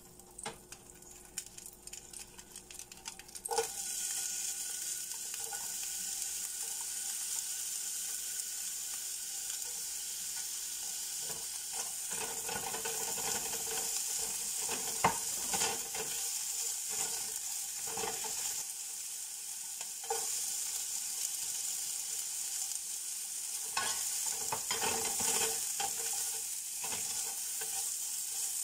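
Sliced onions and carrot strips sizzling in hot oil in a Kobach honeycomb-surface fry pan; the sizzle starts suddenly a few seconds in and runs steadily. A spatula scrapes and stirs the vegetables against the pan again and again.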